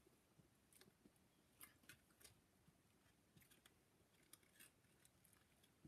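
Near silence, with faint scattered clicks and light rustles of a cardboard chocolate box being handled and opened.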